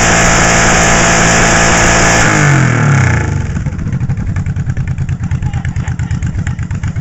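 Loud cruiser motorcycle engine held at high revs, then about two and a half seconds in the revs fall away and it settles into a loping, pulsing idle.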